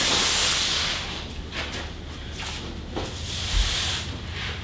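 A cardboard box sliding and scraping across a concrete floor for about a second, then scattered knocks and a low thump as boxes are handled.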